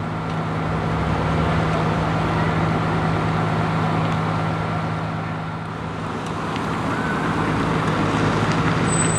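Fire engine's engine running at a steady idle, a constant low hum that holds the same pitch throughout and eases down slightly about halfway before rising again.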